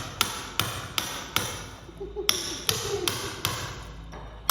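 Hammer striking a steel chisel to cut a channel into a cement floor for buried conduit. Steady, evenly spaced blows, about two and a half a second, each with a short metallic ring.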